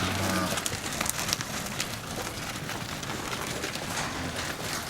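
Herd of beef cattle on the move, a dense patter and crackle of hooves on the ground, with a short low pitched sound at the very start.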